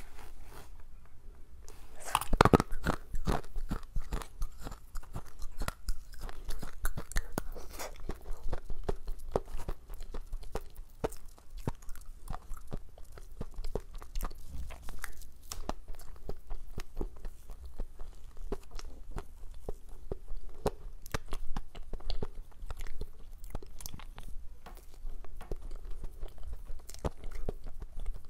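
Close-miked chewing and biting of cake, a dense run of small sharp clicks and wet mouth sounds, loudest about two seconds in.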